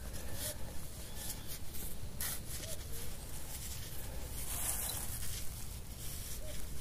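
Soft scraping and rustling with scattered light clicks: digging in soil by hand to recover a metal-detector target.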